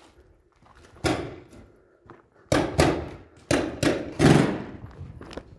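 Paintball markers firing, a handful of sharp pops: one about a second in, then several in quick succession from about two and a half seconds. Each echoes in a bare brick room.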